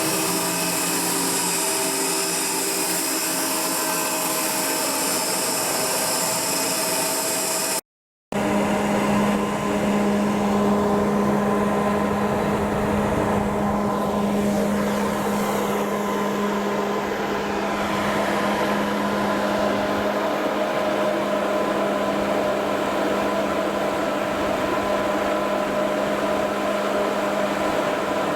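Steady machinery noise aboard a ship under outfitting, a continuous hum with several fixed tones. It cuts off abruptly about 8 seconds in, and a different steady machine hum with a strong low drone takes over.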